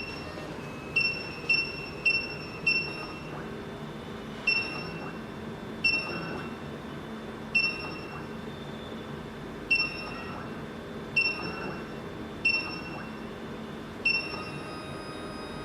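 SEC-E9 automatic key cutting machine decoding a tubular key: a short electronic beep repeats at uneven intervals, about a dozen times, over the machine's steady low hum.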